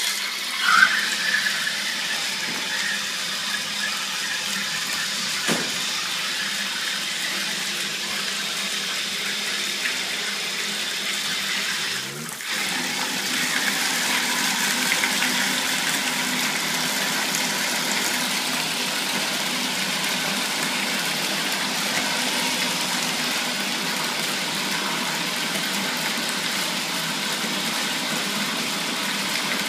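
A stream of water pouring into an empty plastic tote and splashing on its bottom as the reservoir fills: a steady rush with a brief break about twelve seconds in.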